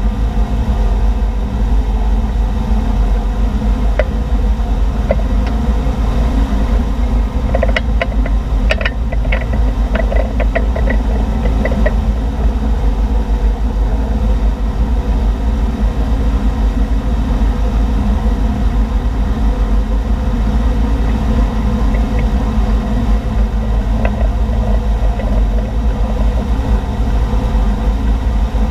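Motorboat engine running steadily at speed under the load of towing a water-skier, mixed with rushing water and wind. From about eight to twelve seconds in comes a flurry of sharp clicks and taps.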